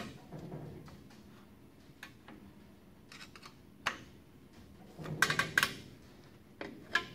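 Light metallic clicks and clinks of a brake spring tool working the shoe return springs on a 1964 Dodge D100's rear drum brake. Scattered single clicks, with a short burst of clatter about five seconds in and two more knocks near the end.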